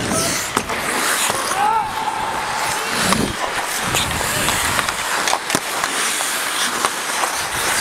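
Ice hockey skates scraping and carving on the rink, with sharp clicks of sticks and puck now and then.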